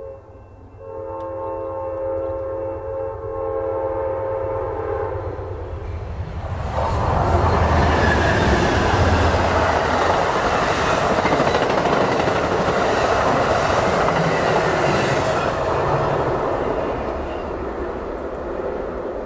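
Nathan K5LA five-chime air horn on an Amtrak P42DC diesel locomotive sounding, with a short break near the start and then a long blast of about five seconds. It gives way to the loud rush of two P42DC locomotives and a passenger train passing at speed, which eases off near the end as the train goes by.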